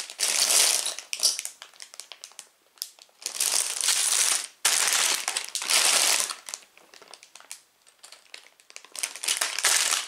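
Sealed plastic bags of Lego pieces being handled: the plastic crinkles and the small parts inside clink, in several bursts of a second or two with short pauses between.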